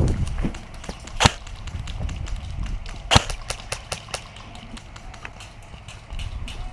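Airsoft gunfire: two sharp shots about two seconds apart, with fainter scattered ticks in between.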